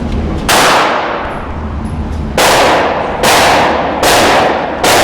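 Five gunshots from neighbouring shooters, each a sharp crack with a ringing tail of about half a second. The first comes about half a second in; the other four follow in a quick run from about two and a half seconds in, roughly one every three-quarters of a second.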